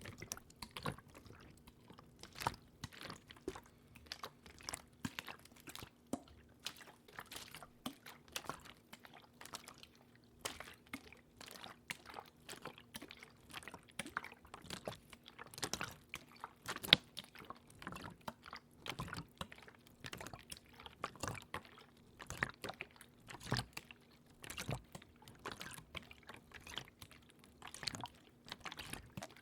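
Close-miked water in ASMR style: a dense, irregular run of wet clicks, drips and small splashes.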